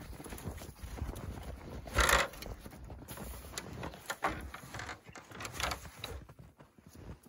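Footsteps crunching in snow while a stepladder is carried and handled, with one loud, sharp knock about two seconds in and more knocks and scrapes later as it is set down.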